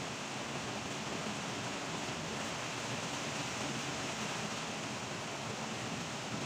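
Steady, even background hiss with no distinct knocks or clicks.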